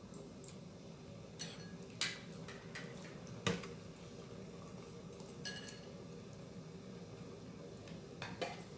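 Utensils clinking against bowls and a metal hotpot during a meal: several sharp clinks, the loudest about two and three and a half seconds in, over a steady low hum.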